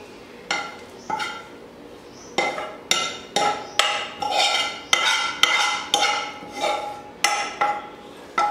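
A utensil repeatedly knocking and scraping against a frying pan to empty roasted grated coconut onto a plate: about fourteen sharp, ringing clinks at an uneven pace of roughly two a second, starting about half a second in.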